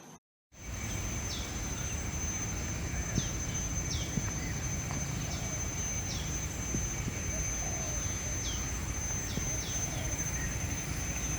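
Outdoor tropical park ambience: a steady, high insect drone, with a bird repeating a short falling call note roughly once a second, over a steady low rumble.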